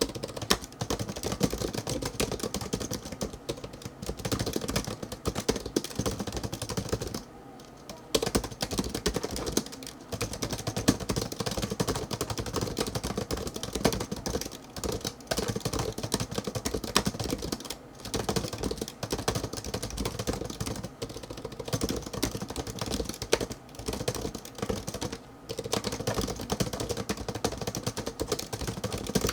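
Continuous fast typing on an ABKO TOS100 slim pentagraph (scissor-switch) keyboard: a dense stream of light key clicks, broken by a few brief pauses.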